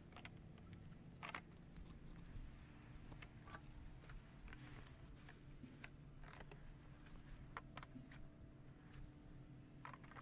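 Near silence: faint low background hum with a few scattered faint clicks.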